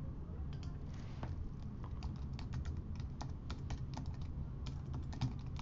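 Typing on a computer keyboard: a quick, uneven run of key clicks, a file name being keyed in, over a low steady hum.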